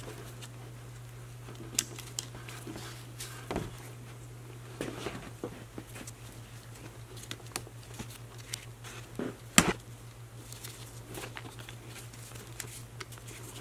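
Gloved hands working wires and crimp terminals onto a winch solenoid: scattered small clicks, taps and crinkly handling noise, with one sharper click about nine and a half seconds in, over a steady low hum.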